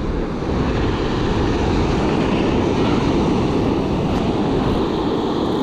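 Steady wind rumble on the microphone with ocean surf washing in behind it.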